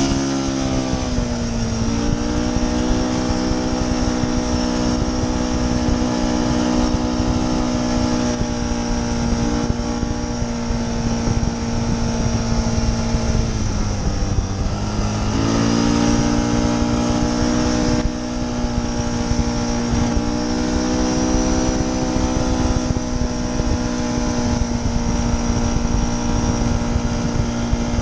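Yamaha Bruin 350 ATV's single-cylinder four-stroke engine running under way at a steady pace. Its pitch falls just after the start as the throttle eases, and it dips and climbs back again about halfway through.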